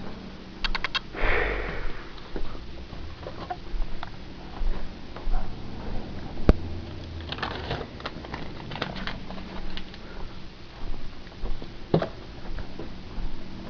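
Short runs of rapid small clicks from a camera's autofocus, mixed with scattered handling knocks and a brief rush of noise. A single sharp click comes about six and a half seconds in.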